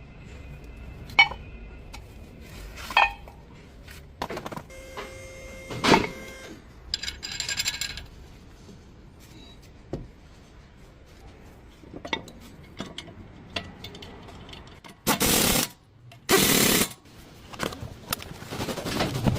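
Metal tools and brake parts clinking, several strikes leaving a short ringing tone, then two loud hissing bursts of about a second each near the end.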